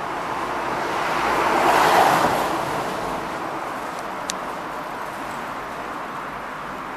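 A car passing by on the street, its tyre and engine noise swelling to a peak about two seconds in and then fading, over a steady traffic hum. A single short click about four seconds in.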